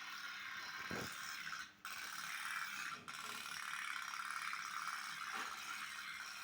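Pop-pop steam toy boat running: a fast, steady buzzing rattle of rapid ticks as its boiler pulses water through the exhaust tubes, with two brief breaks.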